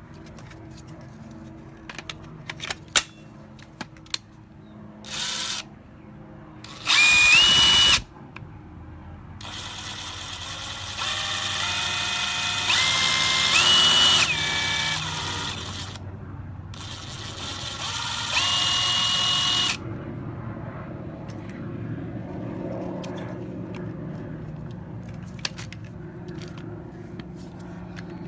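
DeWalt 20V MAX cordless impact wrench running in about four separate bursts, the longest about six seconds near the middle, its motor whine stepping up in pitch within each burst.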